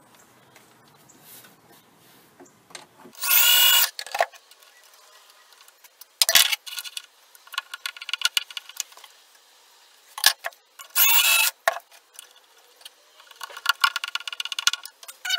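Cordless drill running in several short bursts, the longest about three seconds in and again about eleven seconds in, boring pilot holes with a self-centering Vix bit through a hinge mounting plate into the wood. Near the end, screws are turned in by hand with a screwdriver.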